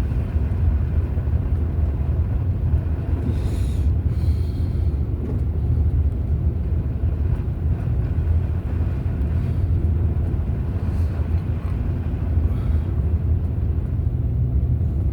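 Steady low rumble of a pickup truck's engine and tyres on a snowy road, heard from inside the cab while driving, with a few faint brief swishes.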